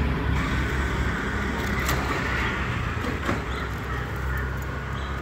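Street traffic passing: motor-vehicle engines, among them an auto-rickshaw and a motorbike, over a steady low rumble.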